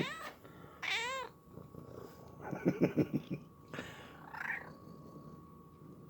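Domestic cats meowing to beg for food: two quick meows at the start, a lower, rougher cry about two and a half seconds in, and a weaker meow around four seconds in.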